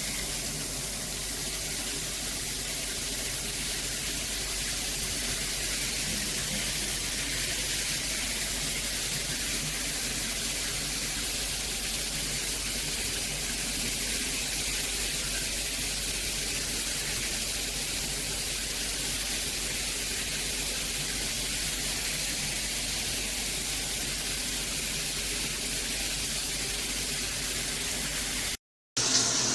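Water spraying steadily from a handheld shower head: an even hiss that does not change, with a faint low hum underneath.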